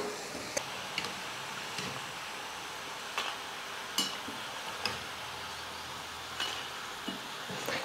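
Oil sizzling steadily in a kadai as moong dal pakodas deep-fry, golden and done, with scattered light metal clicks from a slotted spoon and a wire strainer basket touching the pan.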